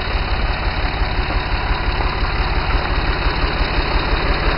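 An engine idling steadily with a fast, even low throb.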